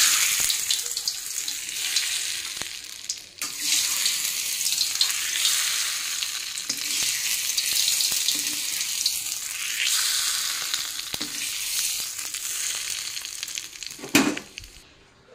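Hot oil with fried dried red chillies sizzling steadily, dipping briefly about three seconds in. A sharp knock sounds near the end as the sizzle dies away.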